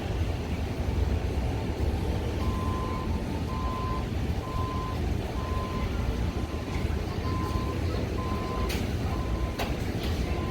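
A vehicle's reversing alarm beeping steadily, about once a second, starting a couple of seconds in, over a steady low rumble.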